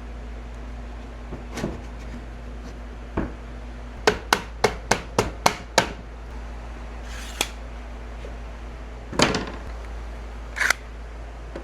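Hammer striking wood: a quick, even run of about seven knocks, roughly four a second, with a few single knocks before and after.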